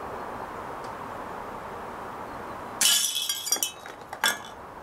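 Steel BB fired from a CO2 BB revolver striking a tin can about three seconds in: a sharp metallic clink with ringing. The can is knocked over and clatters twice more as it falls.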